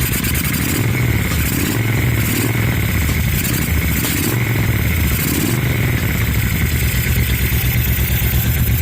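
Suzuki Intruder VL1500's liquid-cooled V-twin running on its freshly rebuilt carburetors, revs rising and falling a few times in the first half, then settling to a steady idle. It runs cleanly after the carburetor rebuild cured its running problems.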